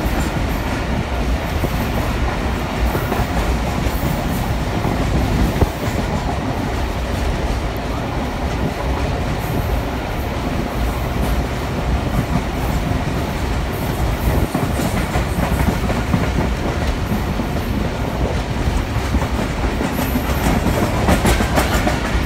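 Passenger train running along the track, heard from inside a carriage: a steady, unbroken running noise of the wheels on the rails.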